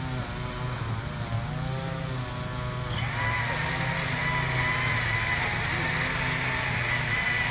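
Tree-work machinery running: a steady low engine hum, joined about three seconds in by a louder, steady high-pitched whine.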